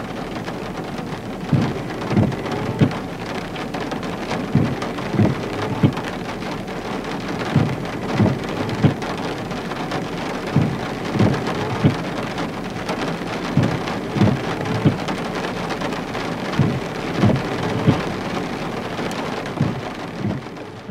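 Steady hiss of rain falling. Short low thumps cut through it in groups of three, about every three seconds.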